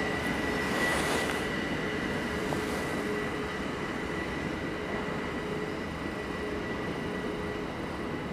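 Electric multiple unit train running away along the line, its rolling noise slowly fading, with a steady high whine throughout.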